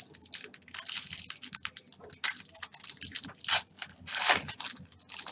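Foil wrapper of a football card pack being torn open and crinkled by hand: a dense run of crackles and rustles, loudest a little over two seconds in and again just past four seconds.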